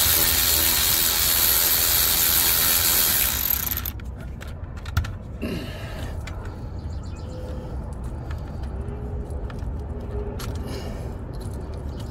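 Milwaukee cordless ratchet running steadily for a little under four seconds, spinning out an injector hold-down bolt that has already been broken loose, then stopping. After it comes a lower steady rumble, with one sharp click about five seconds in.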